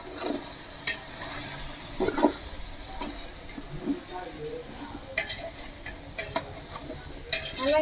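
Chicken, tomatoes and spice powders sizzling in a large aluminium pot while being stirred and mixed. The sizzle is a steady hiss, broken by a few sharp clicks.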